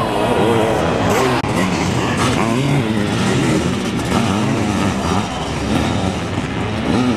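Several sidecar motocross outfits' engines revving hard, their pitches rising and falling and overlapping as the machines accelerate and shift through the corners.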